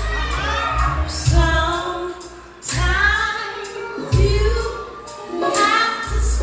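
Solo singing with vibrato over a backing track, with a deep bass note or drum hit about every second and a half.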